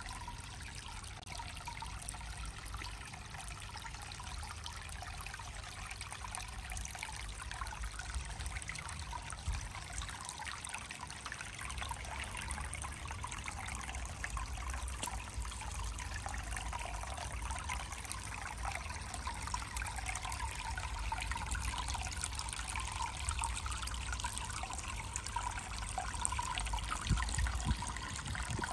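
Water trickling steadily from a rock spout into a whisky-barrel pond, with a steady low rumble underneath.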